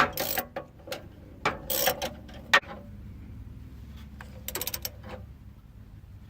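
Socket ratchet clicking in short bursts while the starter's mounting bolts are tightened, with a quick run of clicks again about four and a half seconds in.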